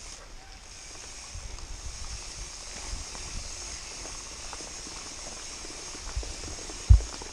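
Steady high-pitched insect chorus, with low rumbling and small knocks on the microphone and one sharp thump near the end.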